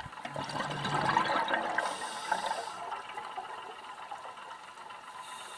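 Scuba diver exhaling through a regulator underwater: a burst of gurgling bubbles, loudest about a second in, fading away after about three seconds to a low hiss.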